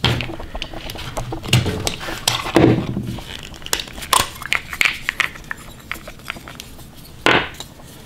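Handling noise of a refrigerator's capacitor being worked out of its plastic holder: scattered small clicks, clinks and rattles of plastic and wire terminals, with a louder knock near the end.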